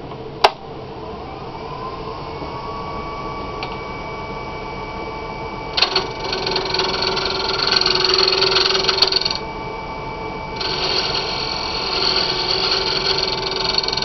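A wood lathe is switched on with a click and its motor whine rises as it spins up, then holds steady. About six seconds in, a spindle gouge starts cutting the rim of the spinning wooden pipe bowl, making a loud scraping hiss of shavings. The cut pauses for about a second and resumes near the end.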